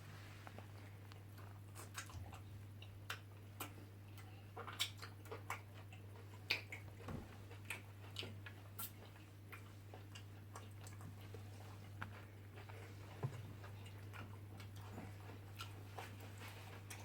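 Chewing and mouth smacking while eating ogbono soup with fufu, with scattered short clicks and smacks, most frequent in the first half, over a steady low hum.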